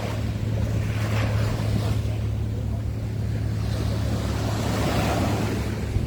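Boat engine running with a steady low hum, over the wash of surf and wind.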